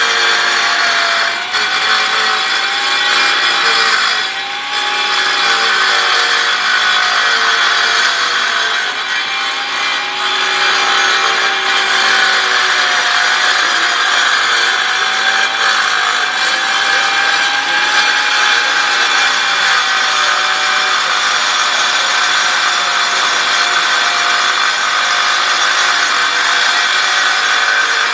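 Skilsaw circular saw on a Perfect Trac joint-cleaning cart running steadily while its blade cuts about a quarter inch into a concrete control joint, cleaning it out. The motor's pitch wanders slightly up and down as the blade meets the concrete.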